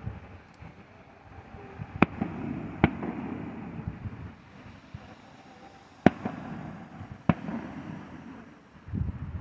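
Fireworks exploding overhead: four sharp bangs, two close together about two seconds in and two more around six and seven seconds, each followed by a low rolling echo.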